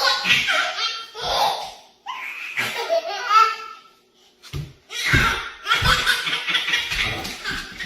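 People laughing hard in bursts, with a short pause about halfway through.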